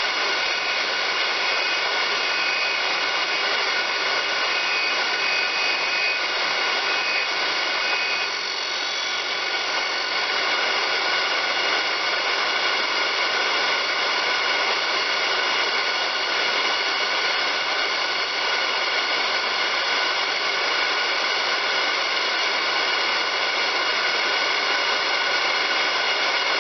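Cutter-sharpening grinder running steadily as it sharpens a milling cutter: a steady whine of several held tones over a hiss, dipping briefly about eight seconds in.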